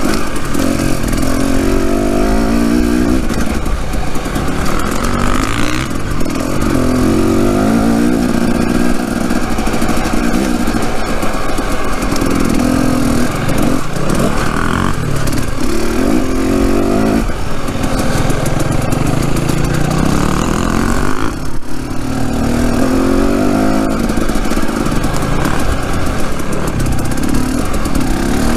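Dirt bike engine riding along, its pitch climbing and dropping again and again every few seconds as the throttle is opened and closed.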